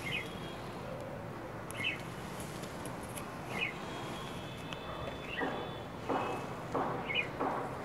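A bird calling outdoors: a short high chirp repeated about every two seconds. In the second half there is soft rustling from hands working over the pot of soil and bulbs.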